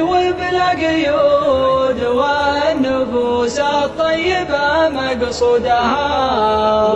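Arabic welcome song sung as a slow chant. The voice holds long notes that slide between pitches and ends a line on the word 'مقصودها' near the end.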